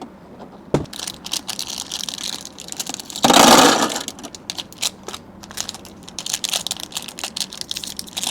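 Marbles clicking and clattering as they are put into the small box inside a toy pinball machine. A little past three seconds in, a handful pours in together in a loud rush of clatter. Scattered clicks of single marbles follow.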